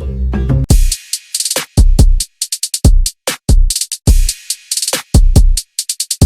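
Electronic background music: a sustained melodic passage gives way about a second in to a punchy drum-machine beat of deep kicks and crisp hi-hats with abrupt gaps between the hits.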